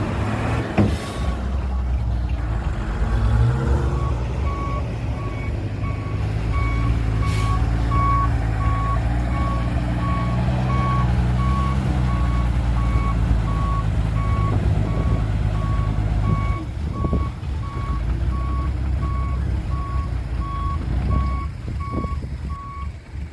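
A heavy diesel machine's reversing alarm beeping steadily, about twice a second, over its running engine. The engine revs up a few seconds in and eases off about three-quarters of the way through, as the machine backs up.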